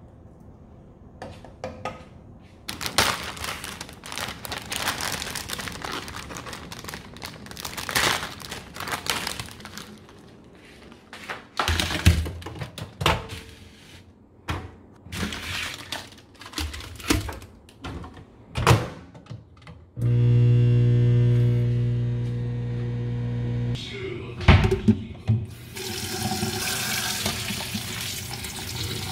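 A run of kitchen sounds. First a wooden spatula stirs noodles in hot water in a saucepan, then come clicks and knocks around a microwave, then a steady electric hum for a few seconds. Near the end, boiled noodles and their water are poured into a plastic colander in a steel sink, water rushing and splashing.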